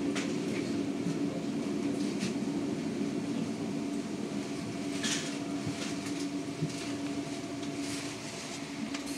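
Interior hum of a standing Škoda 32Tr SOR trolleybus: a steady low hum with a constant tone, and a few short clicks and rattles.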